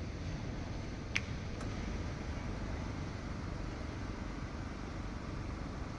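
Steady low rumble of distant vehicle noise, with one sharp click about a second in.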